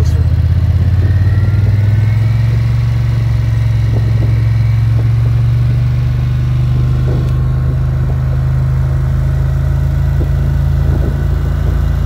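A vehicle's engine running steadily at a slow crawl, a deep, even hum.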